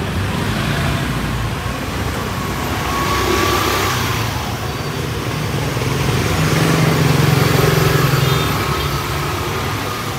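Motorbikes and scooters riding past close by, their small engines running. The sound swells twice as riders pass, the louder pass about seven seconds in.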